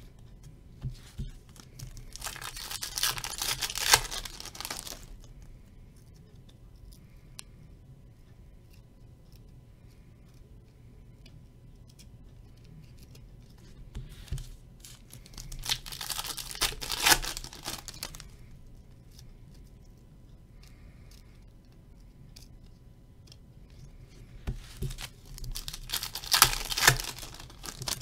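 Baseball-card pack wrappers being torn open and crinkled, three times, each tear lasting a couple of seconds.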